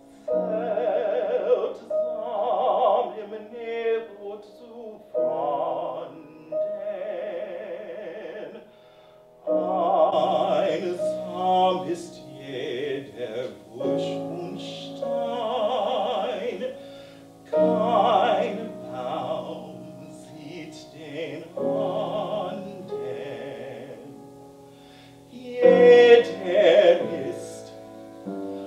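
Baritone singing a classical art song with piano accompaniment, in sung phrases with a wide operatic vibrato and short breaks between them. The loudest phrase comes near the end.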